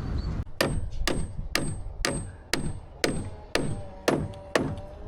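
Hammer driving nails into timber: nine even blows about two a second, each with a short high metallic ring. Music notes come in about halfway.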